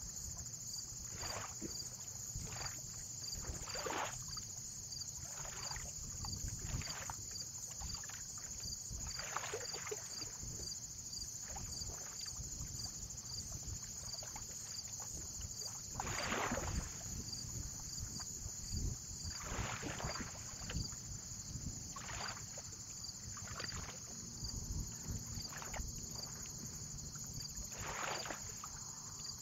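Small waves lapping and splashing irregularly every second or two, over a low wind rumble and a steady high hiss.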